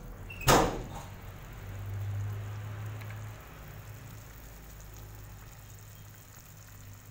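A single sharp knock about half a second in, then a steady low hum that swells for a second or so around two seconds in.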